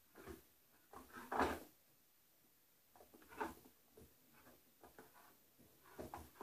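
Rustling and handling sounds of hands looping a hair elastic around a ponytail of synthetic doll hair: a few short rustles, the loudest about a second and a half in.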